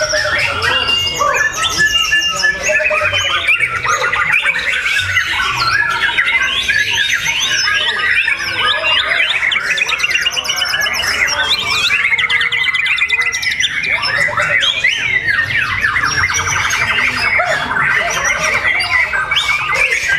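A songbird singing continuously, a long varied song of whistles, gliding notes and fast rattling trills.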